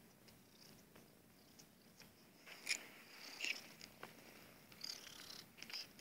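Orange tabby cat purring softly, with a few brief scratchy clicks over it, the sharpest about two and a half seconds in.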